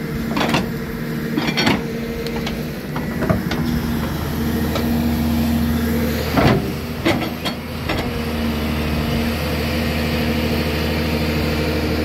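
Engine idling steadily, with a few short knocks and clatters over it.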